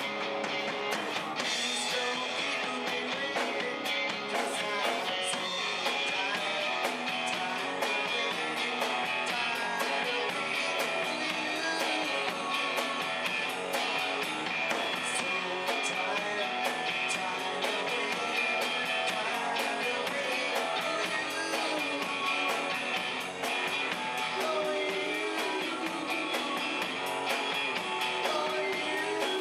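Live rock band playing: electric guitar, electric bass and drum kit, with a steady drum beat running under the guitars.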